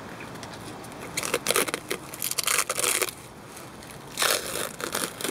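Clear plastic wrap crinkling and tearing as it is pulled off a knife handle that was glued up with epoxy. There are two spells of rustling, one starting about a second in and another near the end.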